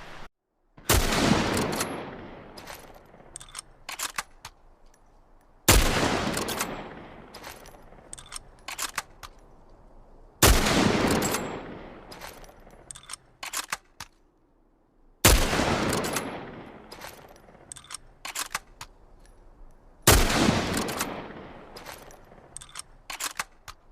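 Hunting rifle fired five times, one shot about every five seconds. Each shot rings out in a long fading echo, followed by a few short sharp clicks.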